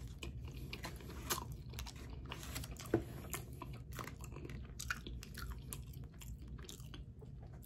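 A person biting and chewing food, with many small irregular clicks and crunches from the mouth.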